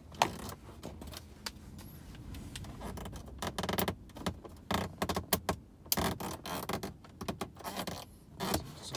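Plastic interior trim being pulled and pried at a car's centre console: irregular clicks, knocks, rattles and scrapes of plastic against plastic.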